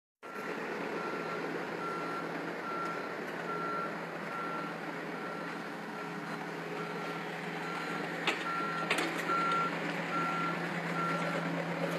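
A vehicle's reversing alarm beeping at an even pace, about one and a half beeps a second, over a low steady engine hum, with two short knocks near the end.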